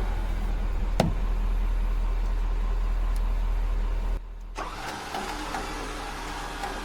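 Truck engine running with a steady low hum, a sharp click about a second in. About four seconds in the sound drops off suddenly to a quieter steady rumble.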